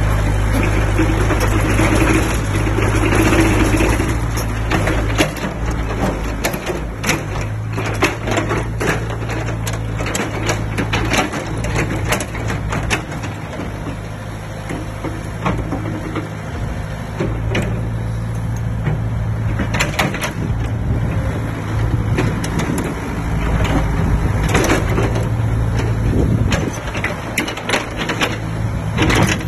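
Caterpillar tracked excavator's diesel engine running steadily while it digs, with frequent knocks, clanks and scraping from the bucket working soil and rubble.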